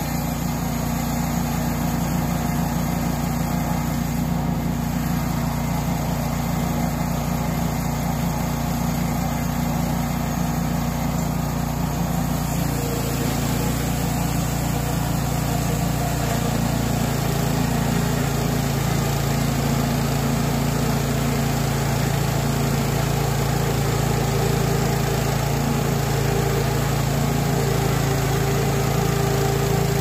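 Forest West portable bandsaw mill running as it saws a stringybark hardwood log, its engine giving a steady note. The note shifts about twelve seconds in and slowly grows louder.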